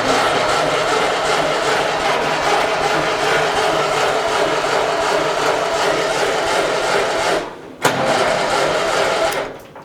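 Electric starter cranking the 1955 Ferguson TEA-20 tractor's four-cylinder petrol engine after decades of sitting, without it catching: one long crank of about seven seconds, a short pause, then a second shorter crank.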